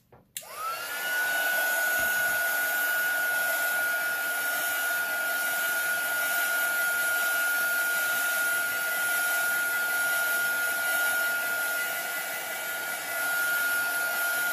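Heat gun switched on about half a second in, its whine rising quickly to a steady high pitch over a rush of blown air, drying alcohol ink on craft plastic.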